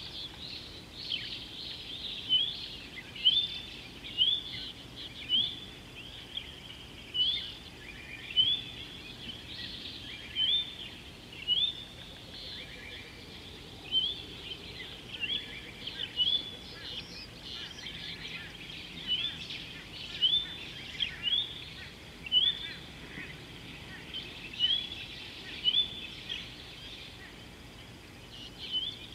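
Wild birdsong: one bird repeats a short, rising, high call about once a second, with other birds chirping more faintly behind it over a steady outdoor background.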